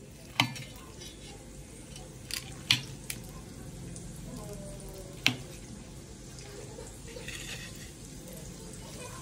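Metal spatula scraping the charred skin off a fire-roasted eggplant on a steel plate, with several sharp clicks as the spatula knocks against the plates.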